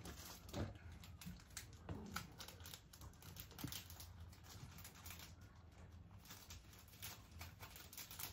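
Knife chopping carrot finely on a cutting board: faint, irregular light taps, several a second.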